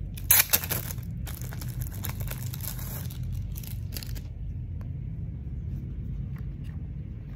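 A sticker sheet being handled and stickers peeled off: crinkling, tearing rustles, loudest about half a second in, that stop after about four seconds. A steady low hum runs underneath.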